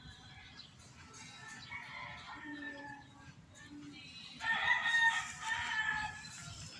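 A rooster crowing once: a loud call of about two seconds, rising out of faint background sound a little past the middle.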